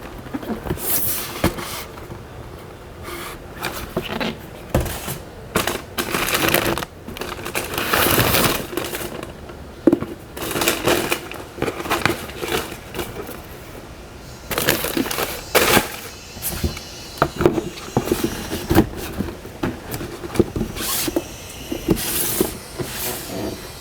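Unboxing handling noise: irregular rustling and crinkling of packaging, with scattered clicks and taps as the sneakers and box are handled.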